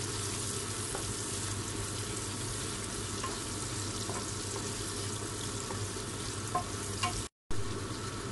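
Diced bacon, onion and garlic sizzling steadily in a nonstick frying pan as they are stirred with a wooden spatula, with a few faint scrapes and taps. The sound cuts out briefly near the end.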